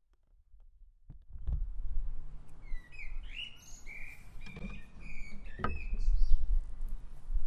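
Birds chirping in short repeated calls that start a few seconds in, over a low rumble. Several sharp clicks are mixed in.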